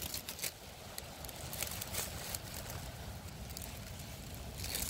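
Dry grass stems rustling and crackling as a hand moves through them, in scattered light clicks that bunch up near the end, over a steady low wind rumble on the microphone.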